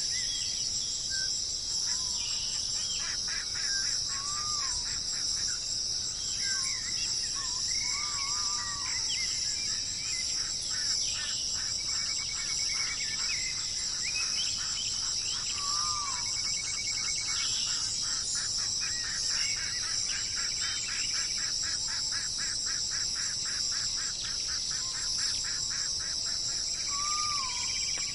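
Steady high-pitched insect chorus with several wild birds calling over it: short, bending whistled notes and rapid trills that start and stop throughout.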